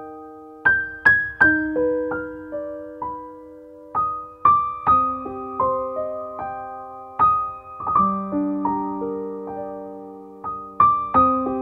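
Background music: a slow, gentle piano melody, its notes struck one after another and left to ring and fade.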